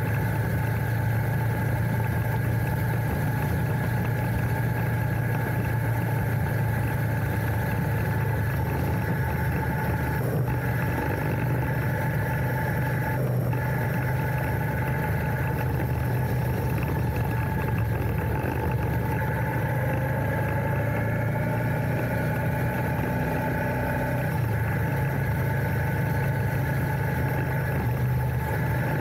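Royal Enfield Interceptor 650's parallel-twin engine running at a steady pitch, picked up close by a handlebar-mounted camera.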